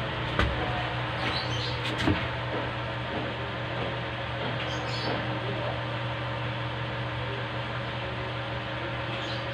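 A steady low machine hum, with two light knocks about half a second and two seconds in and a few faint high chirps.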